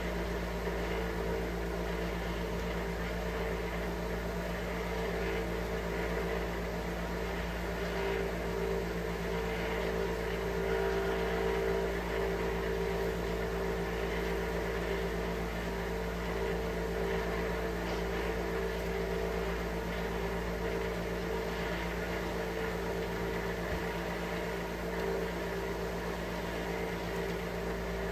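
Steady hum of a running motor, with several steady tones and no change in level.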